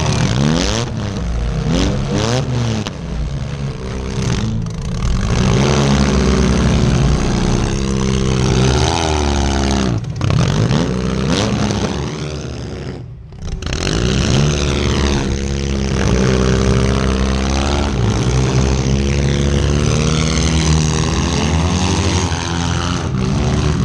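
Compact demolition derby car's engine revving hard, its pitch climbing and falling again and again as it accelerates and backs off, with a few sharp knocks and rattles early on and again later. The engine sound drops away briefly about thirteen seconds in, then picks back up.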